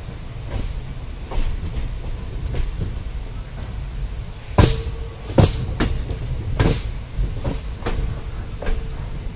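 Passenger train coaches running with a steady rumble, the wheels clacking sharply over rail joints and points, with the loudest clacks bunched together about halfway through.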